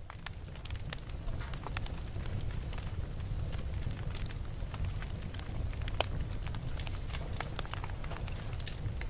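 Wood fire burning in a fireplace: a steady low rumble of flame with frequent irregular crackles and pops, one sharper snap about six seconds in.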